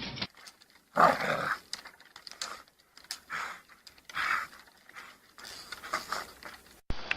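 A dog making several short rough vocal sounds, the loudest about a second in.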